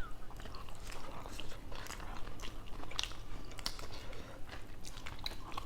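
People chewing and biting food close to the microphone: a run of short, irregular crunching clicks and mouth smacks.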